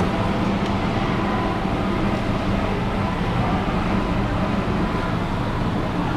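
Steady background noise with a constant low hum, unchanging throughout; no separate cutting or knocking sounds stand out.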